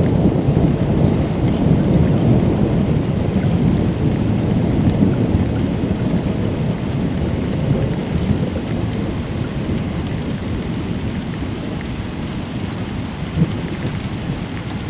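Long, low rumble of rolling thunder slowly dying away, with rain falling.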